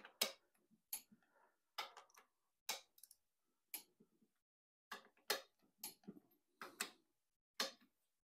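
Click-type torque wrench on the main bearing cap bolts of a Ford 200 cu in six-cylinder engine block: about a dozen faint, sharp clicks, roughly one a second with some closer together. The wrench is set to 25 foot-pounds and clicks as each bolt reaches that setting.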